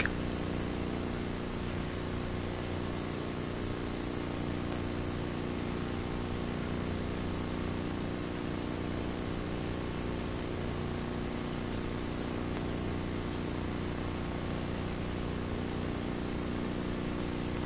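A steady low hum made of several fixed tones, with a faint hiss over it.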